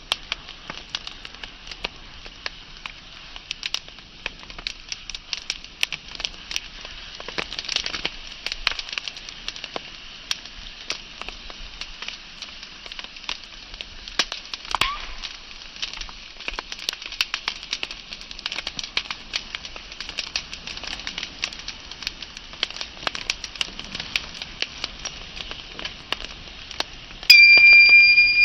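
Wood fire burning with frequent sharp crackles and pops over a steady hiss. About a second before the end, a loud steady high whistling tone starts suddenly and rises slightly in pitch.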